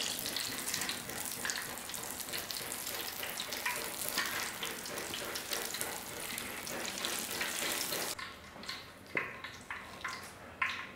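Sweet potato and red bean cakes deep-frying in a wok of hot oil: a steady, dense crackling sizzle. About eight seconds in, the sizzle drops away, leaving a few separate sharp clicks.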